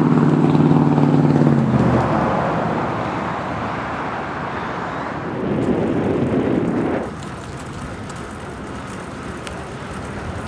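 Road traffic passing close by: one vehicle's engine hum fades out about two seconds in, and the tyre noise of another vehicle swells and drops away near seven seconds.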